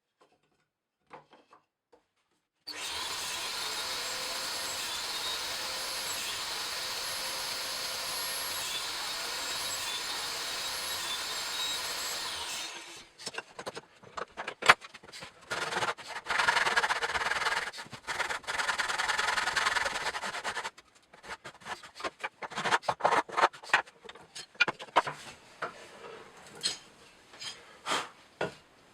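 Woodworking on timber: a power tool runs steadily for about ten seconds and stops suddenly, followed by a jumble of shorter tool noises, rubbing and sharp knocks on wood.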